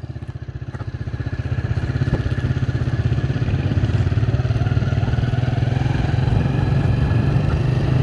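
Motorcycle engine running as it is ridden, picking up speed over the first two seconds or so and then holding a steady pace.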